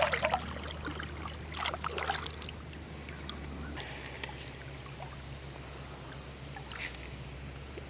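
Splashing in river water as a caught brook trout is released by hand, over a steady river rush. The splashes come in the first two and a half seconds; after that only the flowing water, with a faint splash or two.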